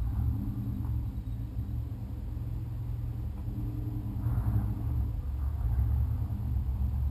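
A motor vehicle engine running with a steady low rumble, swelling slightly partway through.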